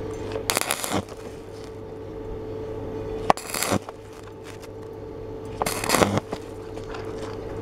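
Stick welding electrode striking short arcs on thin steel plate: three crackling bursts of about half a second each, about half a second in, just after three seconds and near six seconds, over a steady low hum.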